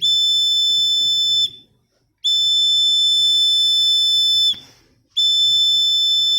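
Electronic buzzer of an LDR light-sensor alarm circuit sounding a steady, high-pitched tone, set off by light falling on the LDR. It sounds three times, cutting out briefly about a second and a half in and again about four and a half seconds in.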